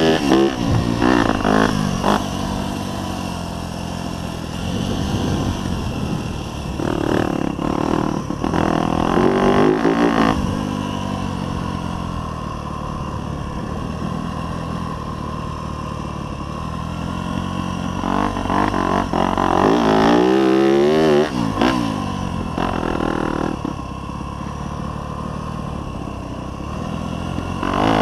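Yamaha YZ250F dirt bike's 250 cc four-stroke single-cylinder engine under way, revving up and dropping back repeatedly as the throttle is opened and shut. The revs rise several times, near the start, around the middle and again later, settling to a steadier lower note between.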